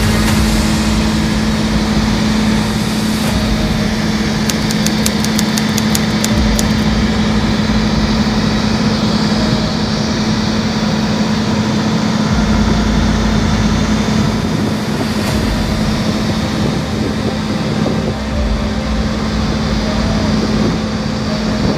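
Excavator's diesel engine running steadily, with a short run of rapid ticks a few seconds in.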